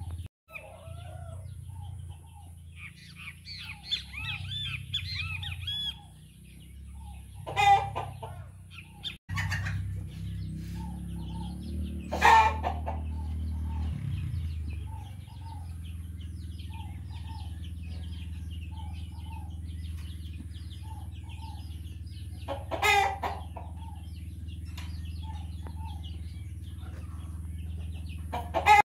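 Chickens clucking in a steady series of short notes, with a rooster crowing several times, over a steady low hum.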